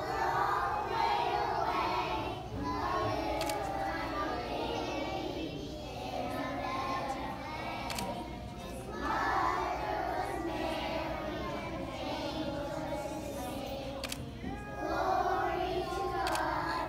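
A choir of young children singing together in unison, with louder phrases about nine seconds in and again near the end.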